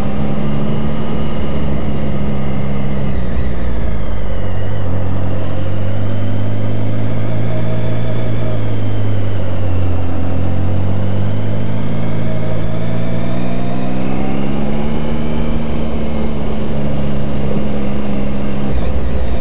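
Triumph Tiger 1050's three-cylinder engine running under way at low revs, with wind noise on the microphone. The engine note drops about three seconds in, sags and slowly climbs again, and steps back up near the end.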